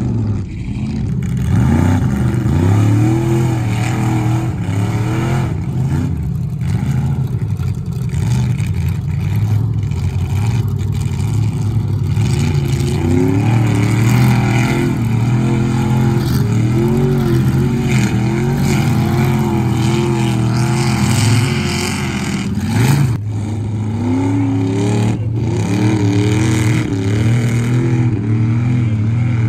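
OBS Chevy pickup's engine revving hard under load as the truck drives through mud and standing water. The engine note rises and falls over and over, with one brief sharp spike about three-quarters of the way through.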